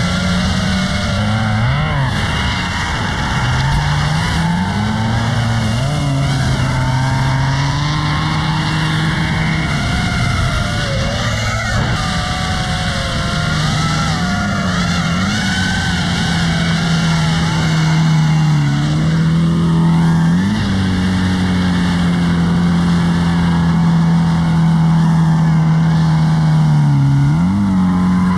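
Drift cars at full throttle: engines held at high revs with quick blips, tires squealing, under the wavering whine of an FPV drone's propellers.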